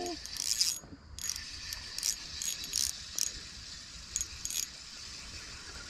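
Fishing reel cranking in a hooked fish: irregular bursts of ratchety clicking and whirring from the reel.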